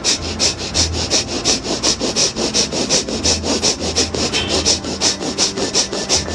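Fast, forceful breathing in and out through both nostrils in an even rhythm, about three breath strokes a second: a pranayama breathing exercise.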